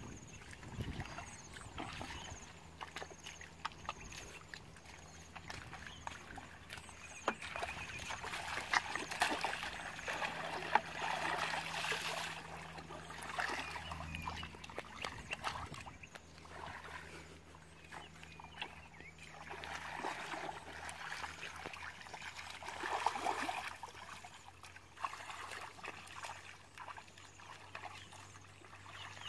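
Hands sloshing and squelching through shallow muddy water while groping for fish, with small splashes that come and go in uneven spells.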